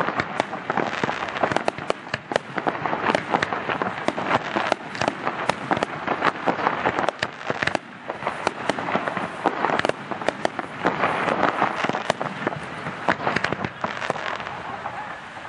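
Aerial firework shells bursting one after another in a dense, fast run of bangs and crackles.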